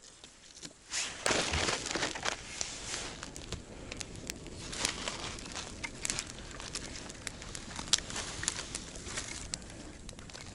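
Freshly lit campfire of dry kindling catching, crackling and rustling with many sharp pops; it starts about a second in with a louder rush, then crackles steadily.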